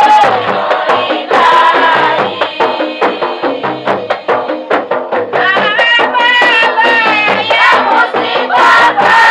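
Voices singing a mawlid devotional chant, accompanied by hand-percussion strokes. The percussion comes to the fore in a quick run of strokes in the middle, then the sung line grows stronger again toward the end.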